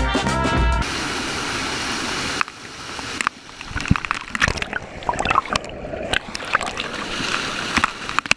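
Water of a small rocky waterfall pouring over a camera at water level: a steady rush for about a second and a half, then irregular splashes, gurgles and drops striking close to the microphone.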